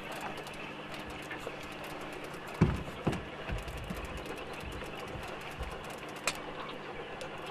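Boat motor running with a steady low hum, with two dull thuds a little over halfway through the first half and a sharp click later on.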